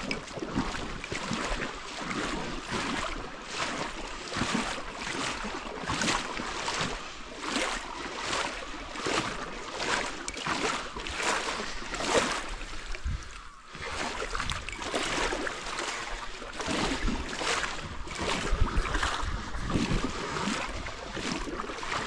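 Water splashing and lapping in a steady, repeating rhythm, with wind on the microphone.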